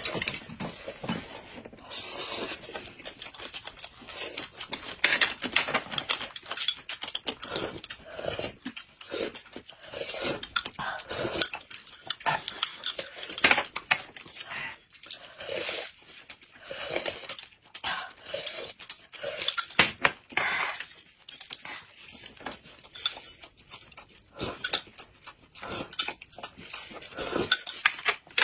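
Close-up eating sounds: noodles slurped and a thin corn drink sipped from glasses and spoons, with chewing and chopsticks and spoons clicking against bowls, plates and glass.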